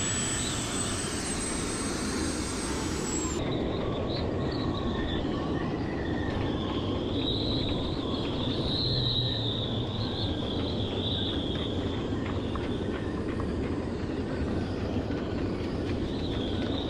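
A handheld rotary tool drilling at a fibreglass deck's vent flange, a steady high whine that cuts off about three and a half seconds in. After that there is strong wind buffeting the microphone, with a faint wavering whistle in the middle.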